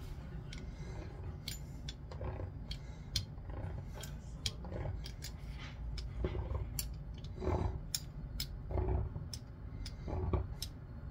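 Hands working chebakia dough on a worktop and tray: irregular light clicks and taps, with a short soft rub or rustle about every second or so, over a steady low hum.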